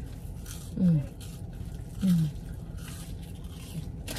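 Two short, muffled voice sounds, each falling in pitch, about a second apart, heard inside a quiet car cabin.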